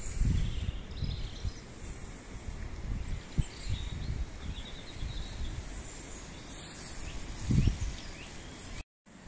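Outdoor ambience: uneven low wind rumble on the microphone, with a stronger gust near the end, and small birds chirping faintly now and then.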